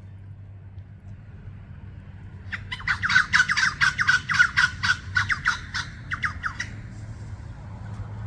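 Australian king-parrot giving a rapid run of harsh squawks, about six a second, for some four seconds starting a couple of seconds in.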